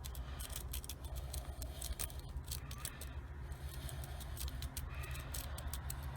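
Small metal clicks and scrapes of a lock pick working the pins inside a cheap 40 mm padlock, scattered and irregular, over a low steady hum.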